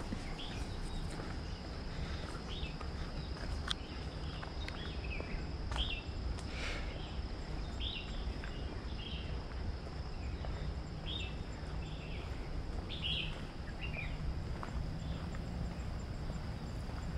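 Outdoor nature ambience: insects keep up a steady high trill while birds give short scattered chirps. There are occasional soft footfalls and clicks over a low rumble.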